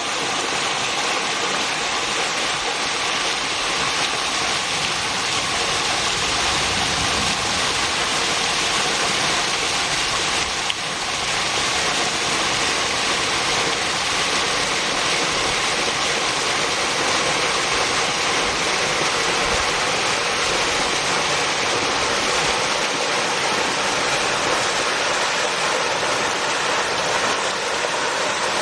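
Mountain waterfall: a steady, loud rush of falling water, with a brief dip about eleven seconds in.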